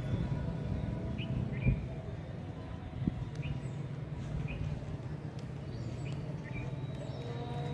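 Outdoor ambience: a steady low rumble with short bird chirps scattered throughout, and a soft thump at about a second and a half in, then another at about three seconds.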